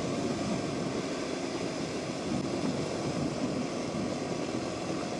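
Off-road motorcycle engine running steadily while riding, mixed with wind on the microphone.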